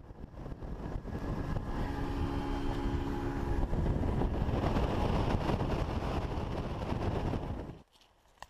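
Motorboat under way, heard from on board: a steady engine drone with wind and water noise, cutting off abruptly near the end.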